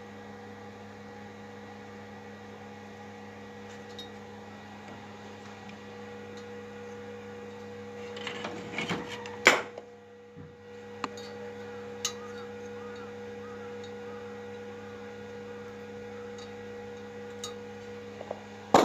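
Steady electrical hum, with rustling handling noise that ends in a sharp click about nine and a half seconds in, and a few lighter clicks after.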